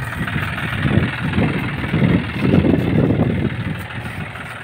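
John Deere 5105 tractor's three-cylinder diesel engine running while it works the hydraulic tipper of a trailer raised to dump its load. The engine grows louder about a second in and eases back near the end.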